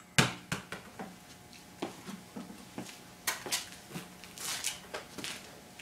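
Underinflated basketball, pumped to only 1 PSI, bouncing on a concrete floor: a few quick bounces in the first second, each quieter and closer together than the last. After that come scattered knocks and scuffs as the ball is picked up.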